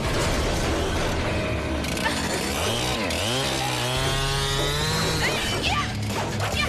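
Action-scene soundtrack: dramatic background music under fight sound effects. About halfway through, a buzzing, saw-like mechanical whir sweeps up in pitch and holds for a few seconds before dropping away.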